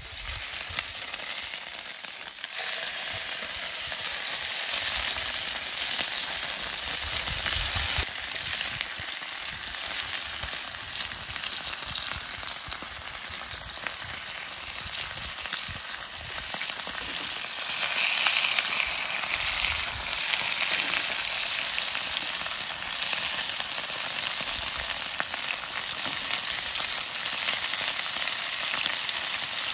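Thin beef rump steaks sizzling in hot oil in a steel frying pan as they are laid in one by one. The sizzle grows louder a couple of seconds in as more meat goes into the pan, then holds steady.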